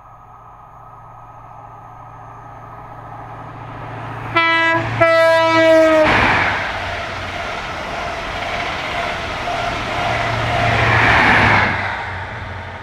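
A train sounds its horn twice as it approaches, a short blast and then a longer one whose pitch drops as it goes by. The rush and rumble of the train passing at speed follow, building up and then fading near the end.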